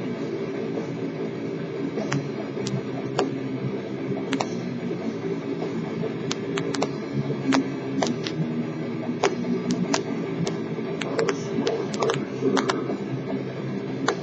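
Muffled rock music playing, with about fifteen sharp clicks scattered irregularly over it, more of them in the second half.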